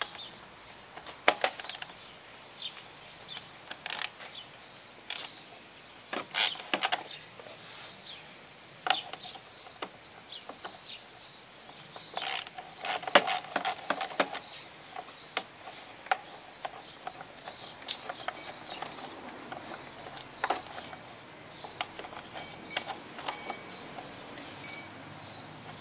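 Ratchet spanner clicking in short bursts with pauses as the bolts on a Hayter Harrier 56 mower's plastic engine cover are undone, with sharp metal clicks and knocks.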